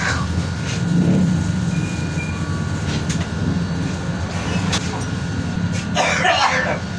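Steady low rumble of a moving vehicle, with a few faint clicks and a short noisy burst near the end.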